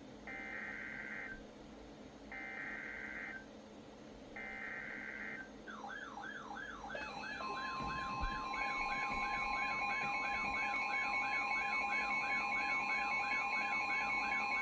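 Three short buzzy bursts of EAS SAME header data tones from NOAA Weather Radio, then weather alert radios going off: a fast warbling siren-like alarm starts about six seconds in and is joined a second later by the steady long NOAA Weather Radio warning tone. Together they announce a severe thunderstorm warning.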